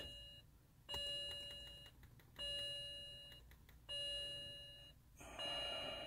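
BMW 335i's warning chime sounding over and over, a gong tone that rings and fades over about a second, repeating four times about every one and a half seconds.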